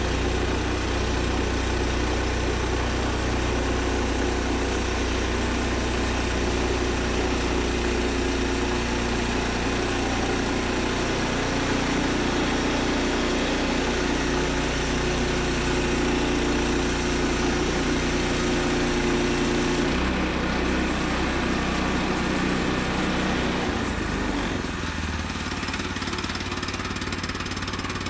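An engine running steadily. It changes speed about 20 seconds in and drops to a lower, slower note around 24 seconds, where it gets a little quieter.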